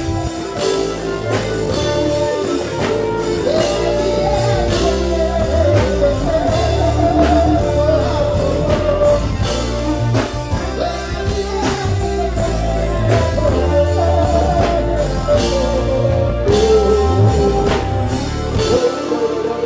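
Live reggae band playing on stage, with a drum kit, bass, electric guitar and keyboards under a wavering lead vocal line.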